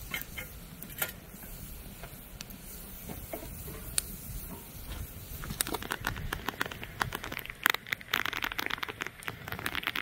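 Rain pattering, picking up into a denser, heavier patter about halfway through.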